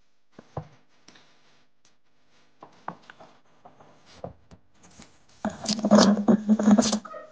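Small knife slicing through a raw potato wedged in the mouth of a glass jar, the blade scraping along the glass rim. Scattered light clicks and taps of handling come first, then a loud, dense scraping cut starts about five and a half seconds in and lasts about a second and a half.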